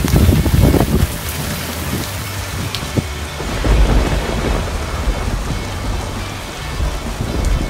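Heavy rain pouring down in a storm, with deep rumbles in the first second and again about four seconds in.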